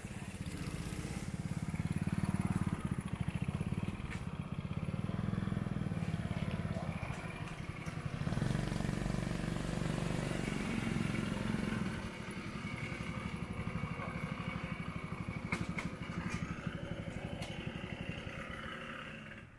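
Small mopeds and step-through motorcycles riding past one after another, their small engines running steadily. The sound is loudest about two seconds in and again from about eight to twelve seconds, as the nearest machines go by, and fades near the end.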